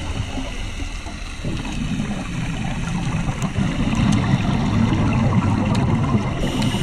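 Steady, muffled underwater noise picked up through an underwater camera housing, mostly low rumble, with bubbling from a scuba diver's exhaled air.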